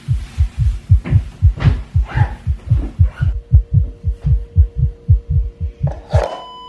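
Rapid, loud heartbeat sound effect, about four low thumps a second, the kind used to depict a panic attack. A faint steady tone comes in about halfway, and near the end the beating cuts off suddenly with a short rushing burst, leaving a high ringing tone.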